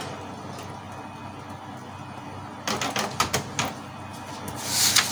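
Canon MP287 inkjet printer's mechanism running after power-on, the P03 error now cleared: a steady low motor hum, then a quick run of clicks and clacks a little under three seconds in. Near the end, a sheet of paper rustles.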